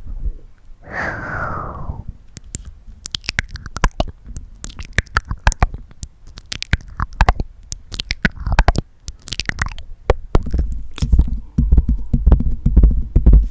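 Close-miked ASMR mouth sounds: a breath about a second in, then a long run of sharp, irregular wet tongue clicks and mouth smacks. Near the end a low rumble from close to the microphone takes over.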